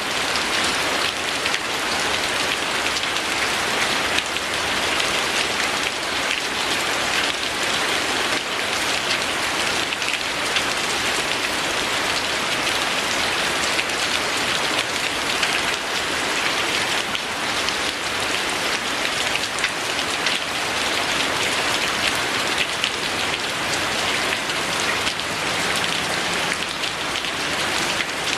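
Steady rain falling, an even hiss flecked with many small drop ticks, unchanging throughout.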